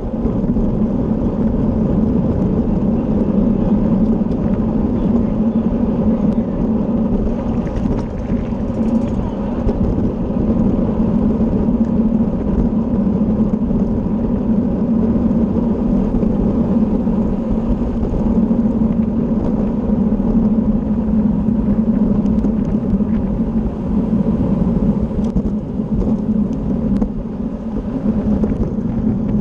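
Steady wind rumble over the microphone of a camera riding on a racing bicycle at speed, with road noise and a constant low hum underneath.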